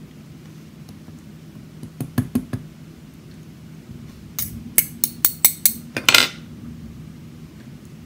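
Small metal parts of a disassembled pin-tumbler challenge lock clicking and clinking as they are handled: a few sharp clicks about two seconds in, then a quicker run of about eight, roughly five a second, ending in a longer ringing clink.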